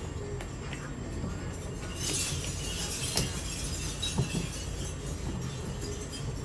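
Hands working on RC wheel parts: a short burst of rustling or crinkling about two seconds in, followed by a few light clicks and knocks.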